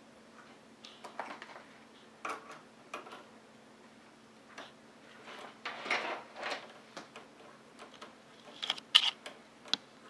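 Small screwdriver turning a screw down into a motherboard's M.2 heatsink: scattered faint clicks and scrapes of the bit in a shallow screw head, with a louder scrape about six seconds in and a few sharp clicks near the end.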